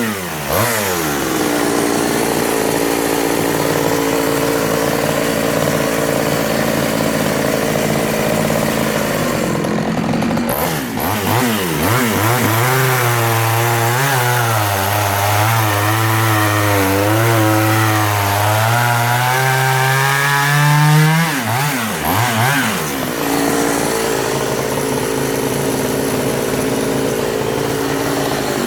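Efco 134 top-handle two-stroke chainsaw cutting wood. Its engine pitch drops and wavers under load in the cut for long stretches, and it revs up and falls back between cuts, about a third of the way in, and again past two-thirds and near the end.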